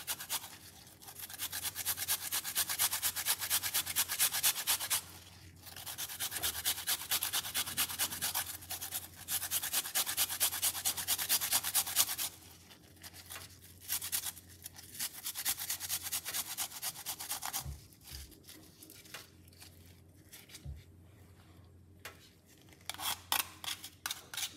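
Fresh turmeric root grated on a handheld flat metal grater: a quick, even run of rasping strokes. There is a short break about five seconds in, and the grating turns quieter and sparser after about twelve seconds.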